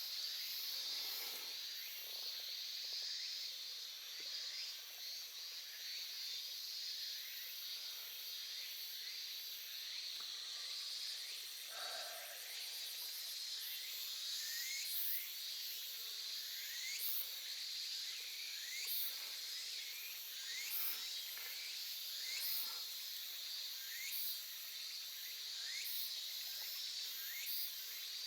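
Gentle stream water flowing over a steady, high insect chorus, with short rising chirps repeating every second or two through the second half.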